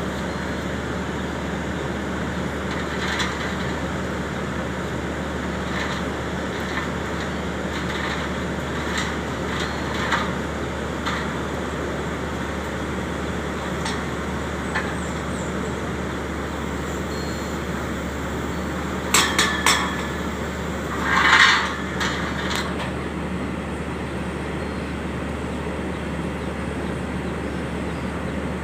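Engine of an XCMG drilling rig running steadily with a low hum, with scattered metallic clinks of steel, three quick ones about two-thirds of the way in and then a louder, longer clank.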